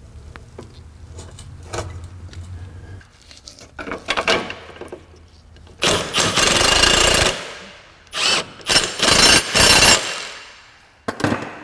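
Compact cordless impact wrench hammering, running a bolt in on the rear suspension. A few light knocks come first, then one burst of about a second and a half, then several shorter bursts.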